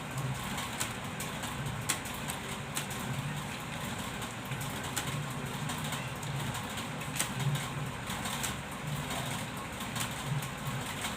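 Computer keyboard being typed on: quick, irregular key clicks, over a low pulsing drone.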